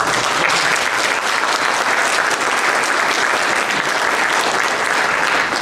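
Audience applauding steadily after a speech, many hands clapping together, fading out just at the end.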